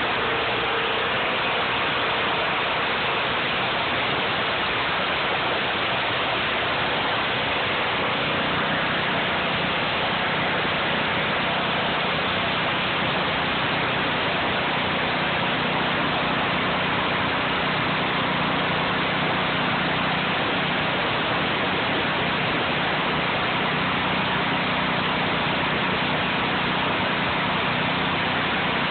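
Pressure washer running: a steady rushing hiss of water spray under a motor's hum, the hum growing steadier about eight seconds in.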